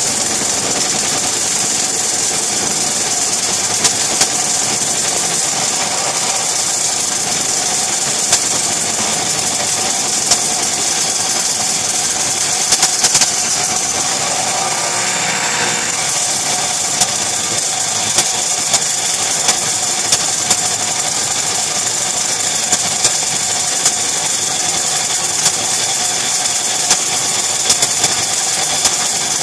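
A router and table saw running together while a wooden bowl blank spins in a turning jig and is cut on its outside, a steady, loud machine noise with scattered sharp ticks of the cut. The blank is not perfectly centred, so the rig vibrates heavily.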